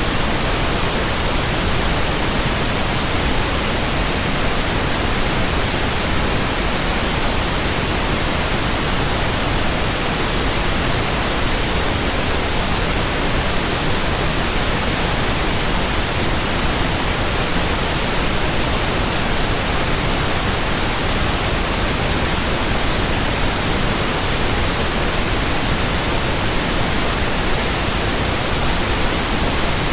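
Steady synthetic white noise: an even, unchanging hiss across the whole range of pitch, with no pulse or tone in it.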